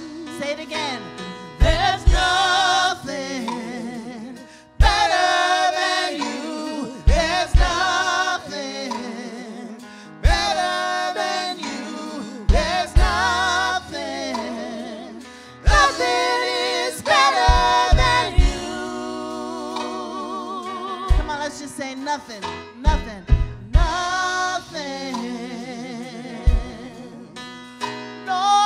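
Live gospel worship song: a man and a woman singing lead with vibrato over keyboard and a drum kit, the kick drum hitting in a steady beat.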